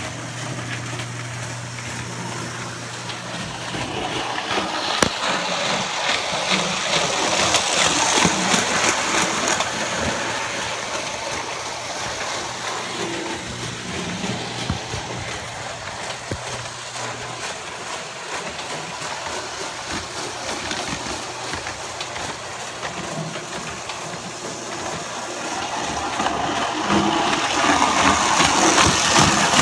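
Prewar Lionel 616 Flying Yankee O gauge tinplate train running on the track, its motor and wheels whirring with rapid clicks from the rails. It grows louder about five seconds in and again near the end as the train comes close. A steady low hum is heard during the first few seconds.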